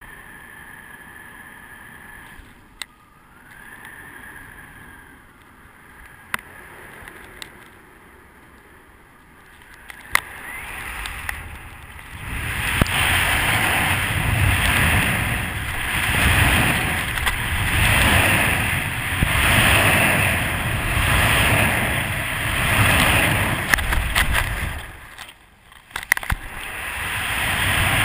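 Wind rushing over a camera mounted on a paraglider wing: faint at first, then from about twelve seconds in a loud rushing that swells and fades every second and a half to two seconds as the wing swings through rhythmic acrobatic turns, dropping away briefly near the end.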